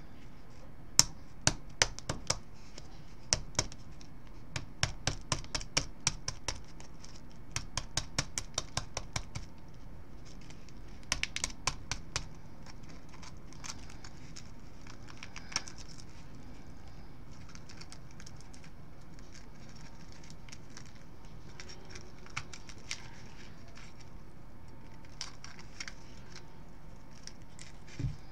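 Kitchen knife tapping on a bantam chicken eggshell to crack it open: a quick run of light, sharp taps for several seconds, a second short run a little later, then only occasional taps and picks at the shell.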